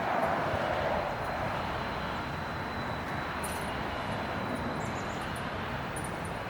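Steady outdoor background noise like distant traffic, swelling slightly in the first second, with a few faint high clicks.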